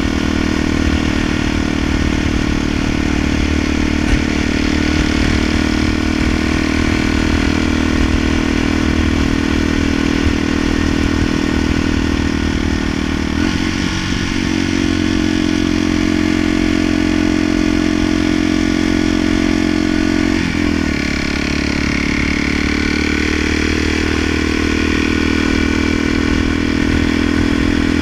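Dual-sport motorcycle engine running steadily while riding at cruising speed. The engine note dips and bends briefly twice, about halfway through and again about three quarters of the way in.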